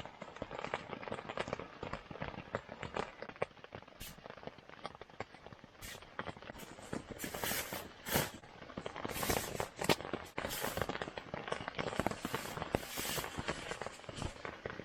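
Rain pattering on a tent: a dense scatter of small irregular drop ticks, with a handful of louder crackles from about four seconds in.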